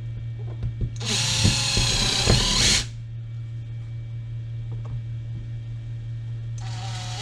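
Cordless drill drilling pilot holes in the feeder frame: one run of about two seconds starting a second in, and a second run starting near the end, with light knocks of handling between.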